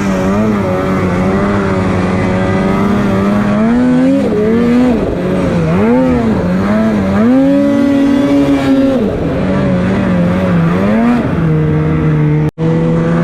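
Snowmobile engine being ridden hard, revving up and down so its pitch rises and falls again and again. It cuts out for an instant near the end, then runs at a steadier pitch.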